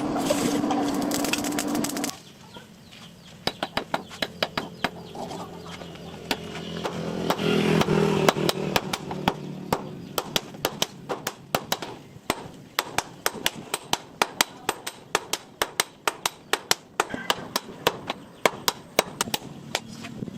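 Repeated sharp knocks of a blade chopping into wood, about two to three strokes a second, starting a few seconds in. Chickens cluck and a rooster crows in the background, most strongly in the middle.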